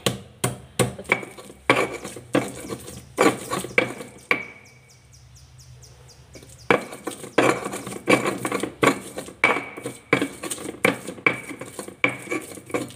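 Stone pestle grinding chilies, garlic and spices in a stone mortar (cobek and ulekan): rhythmic knocks and scrapes of stone on stone, about three strokes a second, with a pause of about two seconds in the middle before the grinding resumes.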